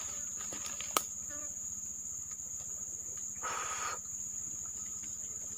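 Forest insects chirring in a steady, high-pitched drone, with a sharp click about a second in and a short burst of rustling noise about three and a half seconds in.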